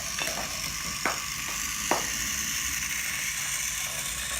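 Toy train running: a steady high hiss with a few sharp clicks, the loudest about a second in and just before the two-second mark.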